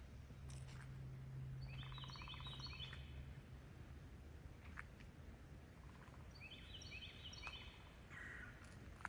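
A songbird singing two similar short phrases of quick falling notes, about four and a half seconds apart, faint over outdoor ambience. A low steady hum runs underneath for the first few seconds.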